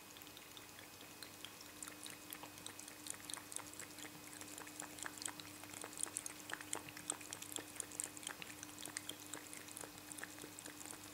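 A cat lapping water from a pint glass lying on its side: a fast run of faint, wet clicks that picks up about two seconds in.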